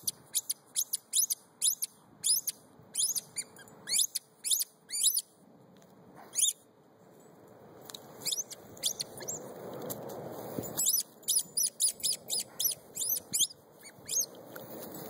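A dog chewing a squeaky tennis ball, the toy giving runs of short high squeaks about two a second, with a lull about halfway through. A rustling noise swells in the middle.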